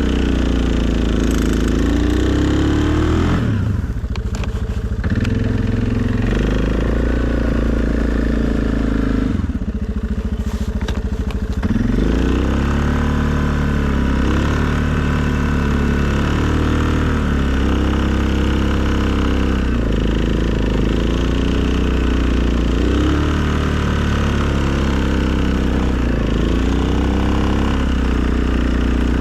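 2020 Suzuki KingQuad ATV's single-cylinder four-stroke engine running. Its pitch drops twice to a low idle in the first half, then rises and falls repeatedly as the throttle is opened and eased off.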